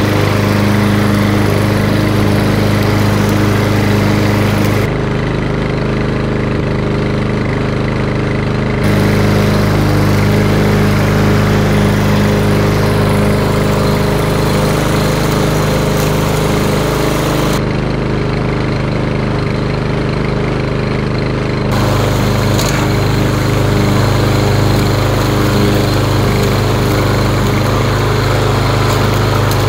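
Gas walk-behind lawn mower running steadily while mowing grass, with a steady engine note; its higher hiss drops back twice for a few seconds.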